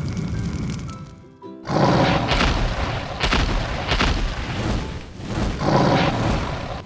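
Background music with a steady beat and booming sound effects. It drops out briefly about a second and a half in, then comes back.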